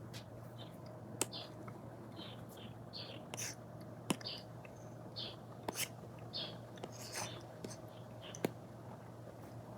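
Apple Pencil strokes on an iPad screen fitted with a paper-textured film: short scratchy swishes one after another, with sharp taps of the pencil tip about four times, and a faint steady hum underneath.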